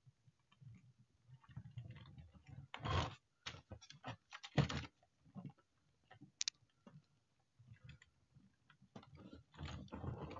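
Battery-powered toy stunt bicycle's small gear motor whirring and clicking in short irregular spurts, with sharp plastic clicks and knocks as it is handled.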